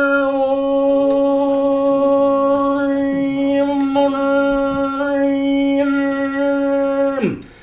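A man's voice chanting one long held drone note like a mantra, the vowel colour slowly shifting. Near the end the note slides down and breaks off for a moment, then slides back up to the same pitch.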